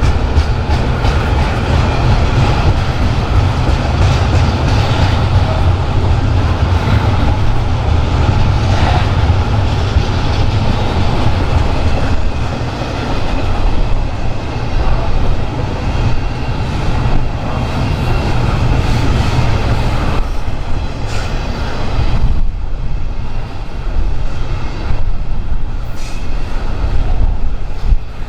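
Train passing close by: a heavy low rumble, loudest in the first half, with wheels clacking over rail joints that become more prominent in the second half.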